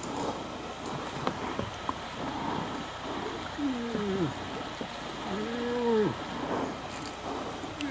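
Moose calf calling: two short calls, the first falling in pitch, the second rising and then falling, with a third starting at the very end. These are the still-forming calls of a young calf learning to call.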